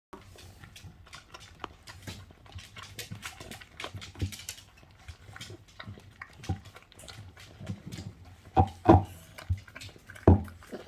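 A Cavalier King Charles Spaniel snoring in its sleep, in uneven rough breaths, with a few louder snorts about two-thirds of the way through and near the end.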